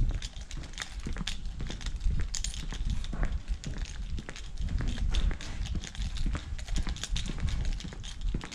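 Footsteps of someone walking on a paved street, with many irregular clicks and a steady low rumble from the handheld camera moving along.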